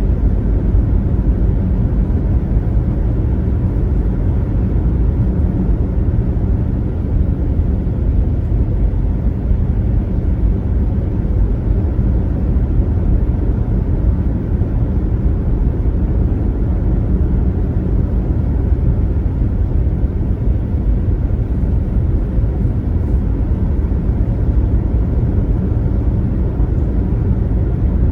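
Steady low rumble of a car cruising at highway speed: tyre and road noise with engine drone, unchanging throughout.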